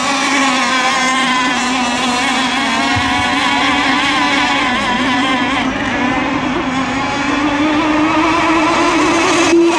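Radio-controlled race boats running flat out just after the start of a heat. Their engines make a steady, wavering note that edges up in pitch near the end.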